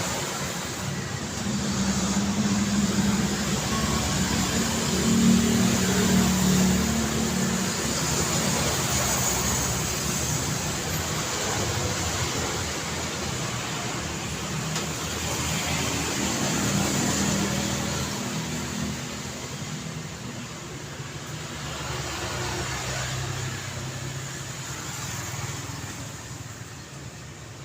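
City street traffic: cars driving past with a steady rush of tyres and engine hum, swelling as vehicles pass, loudest a few seconds in and again past the middle, then easing off near the end.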